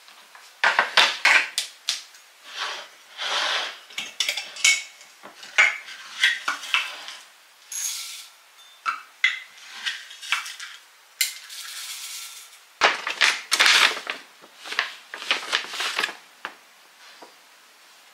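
Irregular clinks and clatters of kitchen dishes: a ceramic bowl set on a kitchen scale and a glass storage jar handled while dry rolled oats are measured into the bowl, with a short stretch of steady rustling near the middle.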